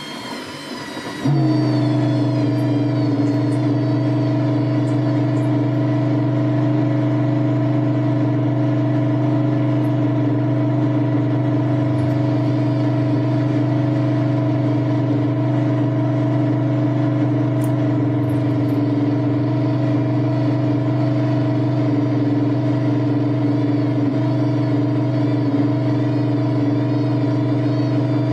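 Washing machine running: a falling whine gives way about a second in to a loud, steady, low machine hum that holds without change.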